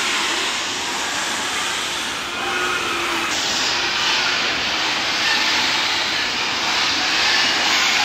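Steady loud din of an enclosed pig barn, a dense hiss with no clear single source and a few faint short tones coming through.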